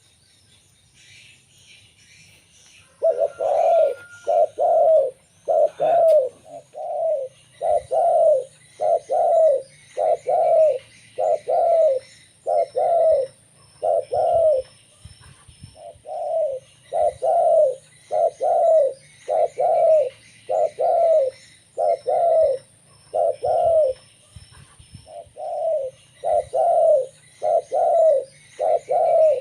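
Zebra dove (perkutut) cooing: a long run of short, arched coo notes, a little more than one a second and often in pairs, starting about three seconds in.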